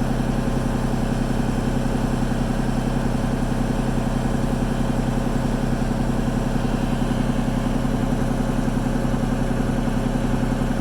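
Construction machine's engine idling steadily: an even low hum that neither revs up nor dies down.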